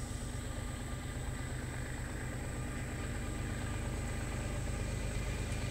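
Diesel locomotive engines rumbling steadily, slowly growing louder.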